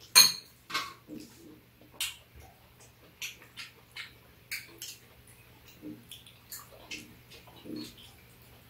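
Eating sounds: metal spoons clinking and scraping in ceramic bowls of bibimbap, with small wet mouth sounds. The clicks are scattered and irregular, the sharpest about a quarter second in, over a faint steady low hum.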